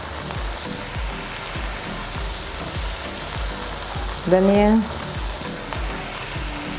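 Onions and tomatoes sizzling as they fry in ghee in a non-stick wok, stirred with a silicone spatula as cumin seeds are added. A short spoken word comes a little past four seconds in.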